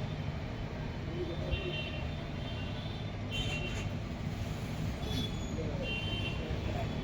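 Street traffic: a steady low rumble of passing engines, with brief high-pitched tones coming and going several times over it.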